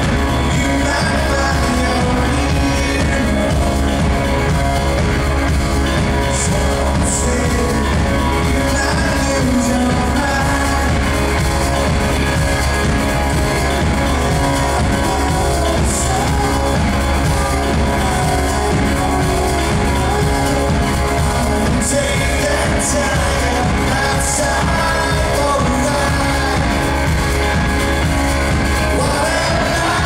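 Live rock band performing through a concert PA: a male lead vocalist sings over electric guitars and a drum kit. The band plays loud and steady, with a concert hall's reverberation.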